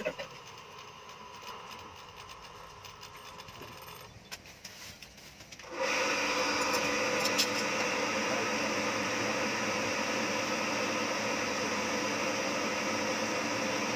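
A sharp knock, then a few seconds of faint clicks and taps. About six seconds in, a steady rushing noise starts and holds: air blown into a charcoal forge to fan the fire.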